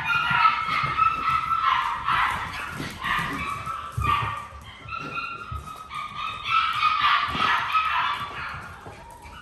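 Seven-week-old poodle puppies whining and yipping: a string of long, high-pitched cries, one after another, fading near the end.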